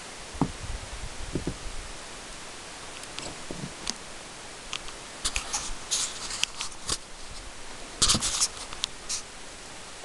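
Steady hiss with scattered scratchy rustles and clicks, bunched about five to six and a half seconds in and again about eight seconds in, and a few soft low thumps in the first second or two.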